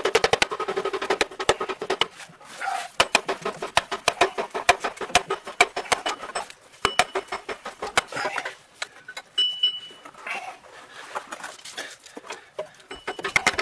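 Rapid metallic clicking and rattling in bursts, from hand work on parts at the torque tube.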